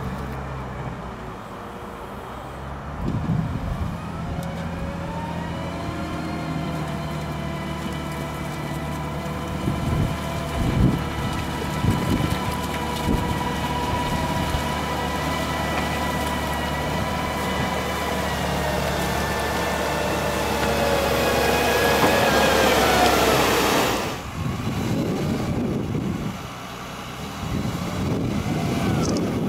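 HUDDIG 1260C backhoe loader's diesel engine revving up and working hard under load as the machine ploughs through deep mud, with a few knocks. Near the end the engine note swells and falls away, then gives way to lower, rougher running.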